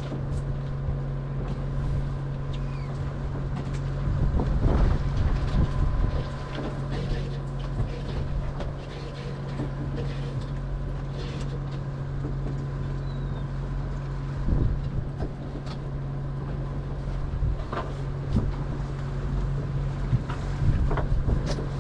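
A party boat's diesel running with a steady low hum, with wind on the microphone and a few brief knocks.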